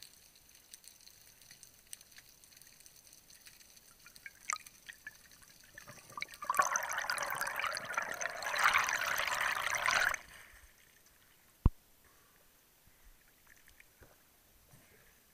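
Air bubbles rushing past an underwater camera housing during an ascent: a loud hiss that starts about six and a half seconds in and cuts off abruptly about ten seconds in, set among faint scattered underwater clicks. A single sharp knock follows about a second and a half later.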